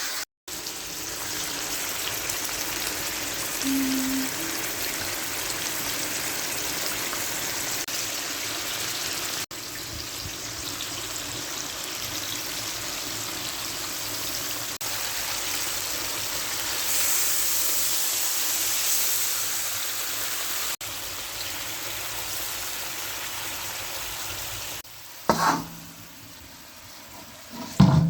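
Food frying in a pan, a steady sizzle that breaks off briefly several times. Two short sharp knocks come near the end.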